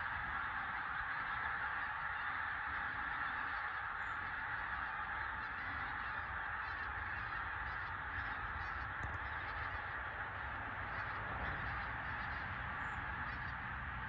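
Pink-footed geese in a flock of thousands calling in flight: their high-pitched contact calls blend into one steady, continuous chorus.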